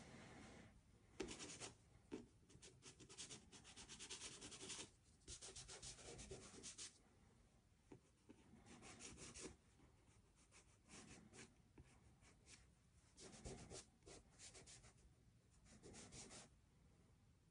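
Soft pastel stick rubbed and stroked across textured paper: faint, scratchy friction in runs of quick strokes, each run about a second long, with short pauses between them.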